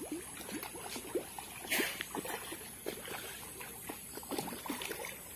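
Soft small splashes and plops of pond water as fish stir the surface, with a slightly louder splash about two seconds in.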